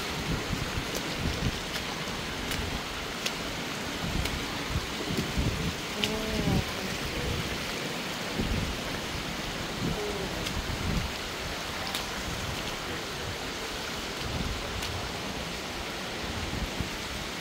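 Shallow creek water running and splashing over sandstone ledges into pools, a steady rushing hiss. A couple of short wordless voice sounds break in about six and ten seconds in.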